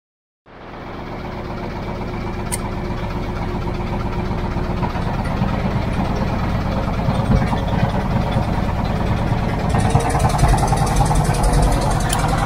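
Small wooden boat's engine running steadily, fading in about half a second in and growing louder, turning harsher about ten seconds in.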